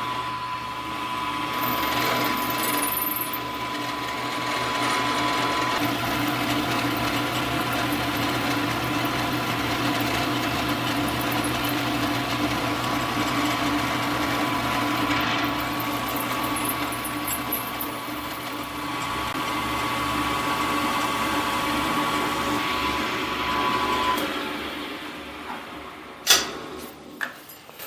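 Milling machine running, its end mill cutting along the edge of a thin strip of stock held in soft vise jaws, with a steady whine over the motor's hum. Near the end the whine stops and the sound dies down, followed by a sharp click.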